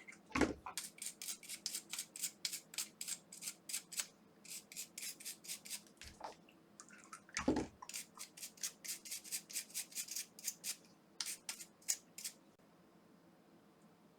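Quick, even scrubbing strokes, about three or four a second, as a small brush cleans liquid-damage corrosion off the toothbrush's parts, stopping near the end, with two heavier knocks along the way.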